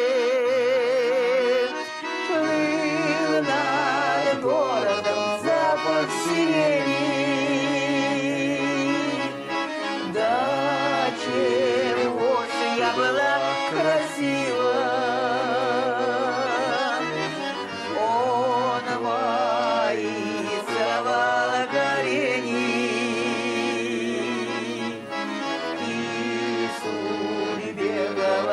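Accordion playing the instrumental part of a Russian song: a wavering melody over sustained bass notes.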